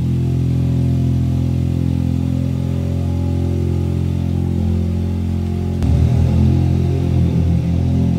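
A car engine running at a steady pitch. A little under six seconds in there is a click, and after it the engine sound turns rougher and less even.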